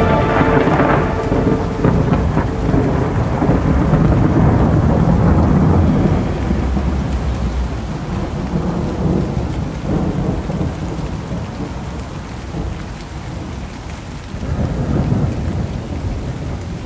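Rain falling steadily with deep rolling thunder, used as a sound effect between synth tracks. The last of the music dies away at the start, and a fresh roll of thunder swells up near the end.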